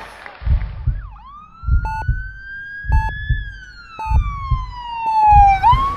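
Dramatic sound effects: a heartbeat thumping about once every second and a bit, with a short electronic beep on each beat, under a single emergency-vehicle siren wail that rises and then falls slowly.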